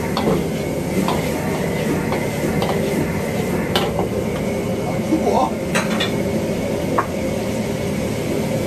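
Stir-frying in a wok: a steady sizzle with a metal spatula scraping and clanking against the pan, a few sharp clanks standing out.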